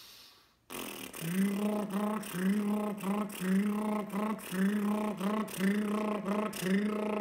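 Buzzing lips with no didgeridoo, making a steady drone pulsed into the repeating T-wa-ka didgeridoo rhythm, about two pulses a second. Starts about a second in.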